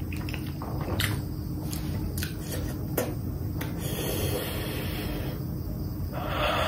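A person eating spicy noodles: a few sharp clicks of a metal fork against the plate while chewing, then a hiss of drawn air and, near the end, a long puff of breath blown out through pursed lips against the chilli heat.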